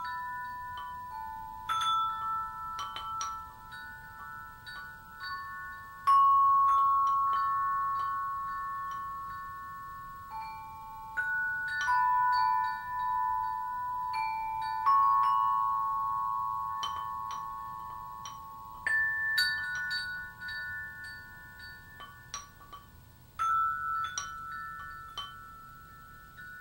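Background music of slow, ringing bell-like chime notes. Single notes are struck every second or few and left to ring for several seconds, overlapping one another.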